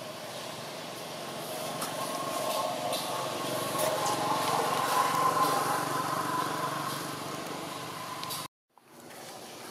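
A motor vehicle's engine running, growing louder to a peak about halfway through and then easing off. The sound cuts out abruptly for a moment near the end.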